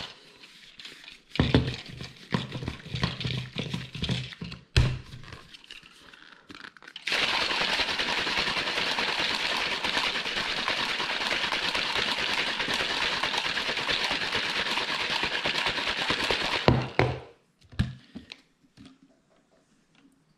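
A plastic shaker cup with a metal mixing whisk inside, mixing pre-workout powder into water. For several seconds there are scattered knocks and clatters from handling. About seven seconds in, the cup is shaken hard for about ten seconds: a fast, steady rattle of the whisk with the sloshing liquid, which stops abruptly and is followed by a few light taps.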